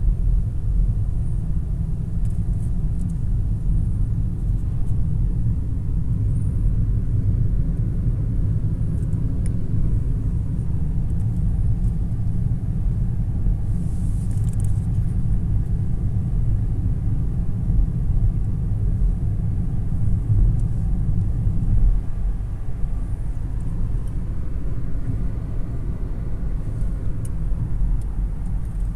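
Steady low road and engine rumble inside the cabin of a moving car, with a brief hiss about halfway through.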